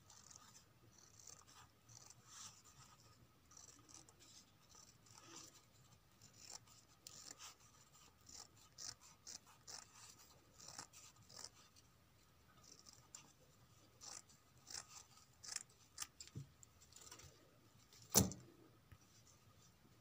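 Scissors snipping through a thin brown sheet in many short, faint cuts, cutting out a traced circle. One sharp knock near the end.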